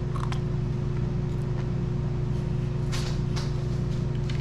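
A steady low mechanical hum with a constant tone. A few brief sharp crunches or clicks stand over it, one near the start and two about three seconds in.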